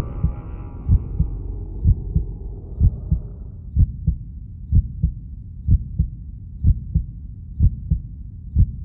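Heartbeat sound, a low lub-dub double thump repeating about once a second, over a tone that fades out in the first second.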